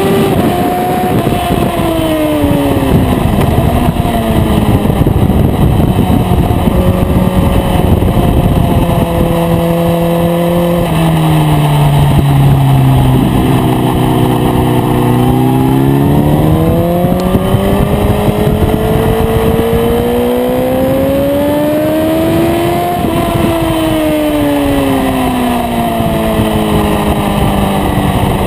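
Onboard sound of an Aprilia RSV4's V4 engine ridden hard on track, over heavy wind rush. The revs fall over the first few seconds, hold steady, sink to their lowest about halfway through while the bike is leaned over in a corner, then climb steadily as it accelerates out before dropping again near the end.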